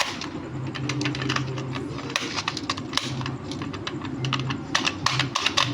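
Rapid irregular clicking as the buttons of a push-button fidget toy game are pressed, over a low hum that switches on and off.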